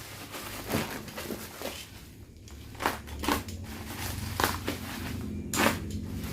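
Bubble wrap packaging being handled and unwrapped, with about six short, sharp crackles and crinkles over a low steady hum.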